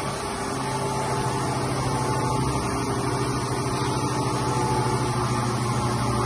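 Optimum UF 100 universal milling machine running without cutting: a steady electric-motor hum with a faint whine, growing slightly louder.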